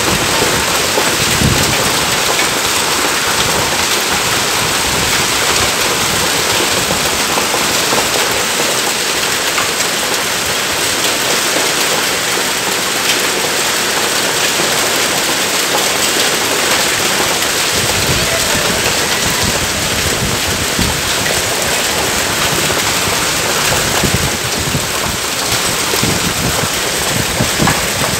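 Heavy monsoon downpour, rain pouring steadily onto wet paving and parked cars and motorcycles.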